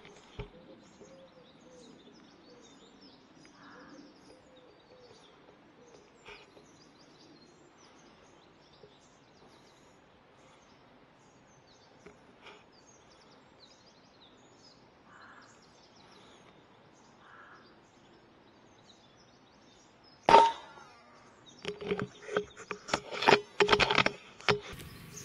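Quiet outdoor background with faint birdsong, then about 20 seconds in a single sharp report from a .177 Daystate Delta Wolf PCP air rifle. A second later comes a run of rapid clattering knocks lasting about three seconds.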